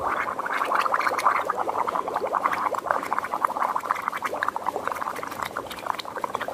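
Air blown slowly through a drinking straw into water in a plastic mug: one long, unbroken stretch of bubbling through a single exhalation, easing a little toward the end.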